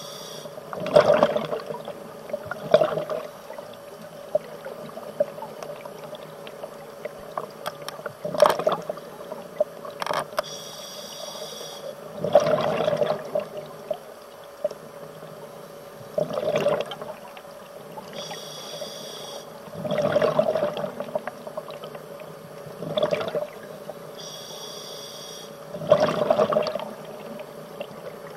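Scuba diver breathing through a regulator, heard underwater: a burst of exhaled bubbles every three to four seconds, and three times a short high hiss from the demand valve on an inhale.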